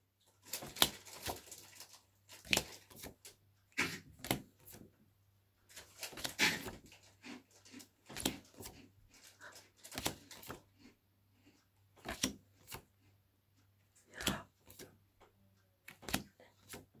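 A stack of paper flashcards being handled, each card pushed forward and slid off the stack in turn: irregular soft clicks and rustles of card sliding against card.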